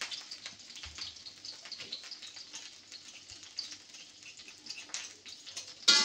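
Pounded shallot, garlic and chilli paste with ginger sizzling in hot oil, a light steady frying with many small crackles. Plucked-string music comes in sharply at the very end.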